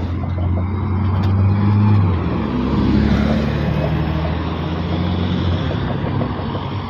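Buses and cars in street traffic: an articulated city bus runs past close by, loudest about two seconds in, while an Iveco Crossway regional bus and cars come up the road.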